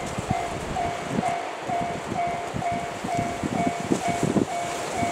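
Railway level-crossing alarm ringing steadily at about two dings a second, over an irregular low rumble of wind on the microphone.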